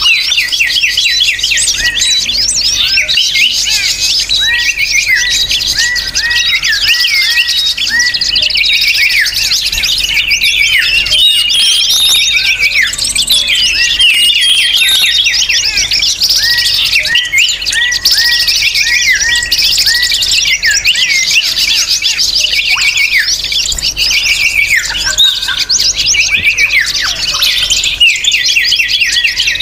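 Dense chorus of many small songbirds chirping and twittering at once, rapid repeated notes overlapping without a break. This is the busy small-bird chatter used as a lure recording to draw wild birds in.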